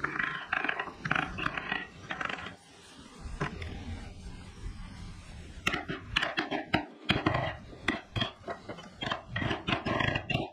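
Wood being carved by hand: irregular scraping cuts of a blade on wood, with a run of sharp clicks and short scrapes from about the middle on.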